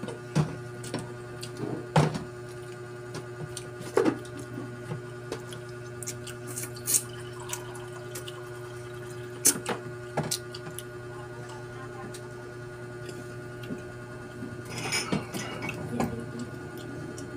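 Table eating noises: scattered sharp clicks and clinks of shellfish shells and dishes, with a denser run of small knocks near the end, over a steady low hum.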